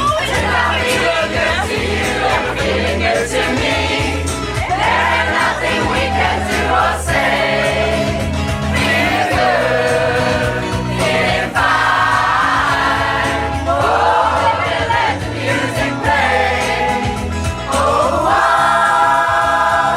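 A choir singing a pop song in several voices over instrumental accompaniment with a steady bass line.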